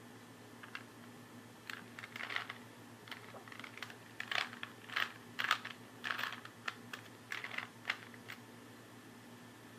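Plastic Rubik's Cube layers being turned by hand: a run of quick clicks and clacks, some in rapid flurries, as the last layer is worked toward the yellow cross.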